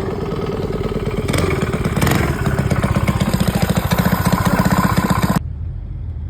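An engine running with a fast, even pulsing beat that grows louder partway through, then cuts off abruptly about five seconds in.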